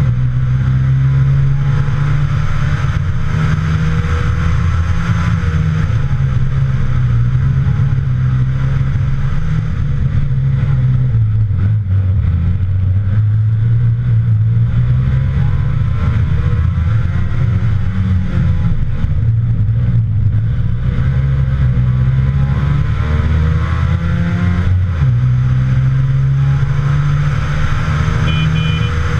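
Trabant rally car's two-stroke engine driven hard at speed, picked up by a camera on the bonnet: the engine note climbs through the gears and drops on the shifts, easing off twice midway before pulling hard again.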